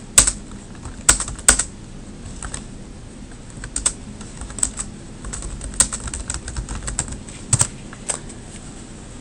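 Typing on a computer keyboard: irregular keystroke clicks, with a few sharper ones in the first couple of seconds.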